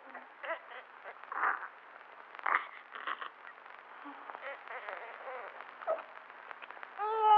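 Newborn baby between cries: scattered short breathy sounds and small snuffles, then a short cry with falling pitch near the end.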